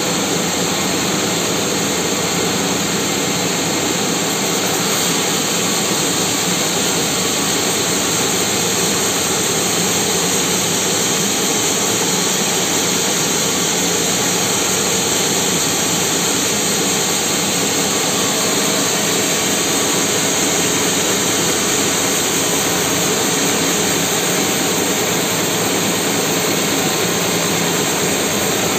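Band sawmill cutting lengthwise through a large mahogany log: a loud, steady machine noise of motor and blade that does not change throughout.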